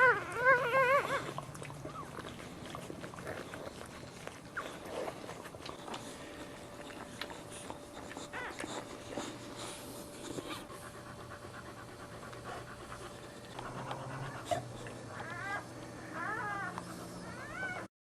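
Dog whining in short, wavering high-pitched cries, once right at the start and again in a run near the end, with faint clicks and rustling in between. The audio cuts off just before the end.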